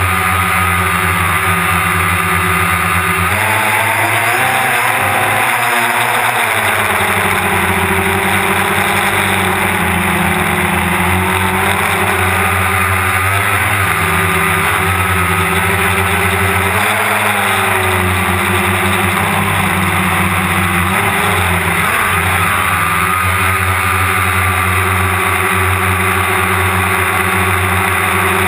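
DJI Phantom quadcopter's electric motors and propellers buzzing steadily, heard from the camera mounted on the drone, over a constant hiss. The pitch wavers a few times as the motors speed up and slow down to steer.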